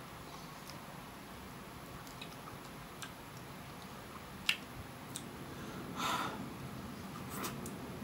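Faint wet mouth sounds of a person eating a melon ice cream bar: scattered soft clicks and smacks, with a short louder slurp about six seconds in.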